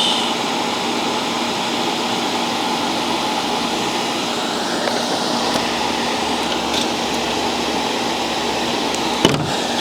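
Solder fume extractor fan running steadily: an even rush of air with a faint low hum. A single sharp click comes near the end.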